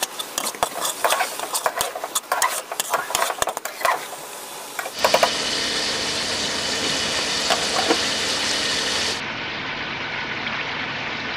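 A spatula stirring food in a metal cooking pot, with quick scrapes and clicks against the pot, for about five seconds. Then a steady hiss takes over.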